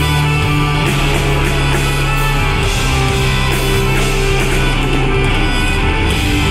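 Live progressive rock band playing loudly and continuously, with electric guitars, bass, keyboards and drums, heard from the audience in a concert hall.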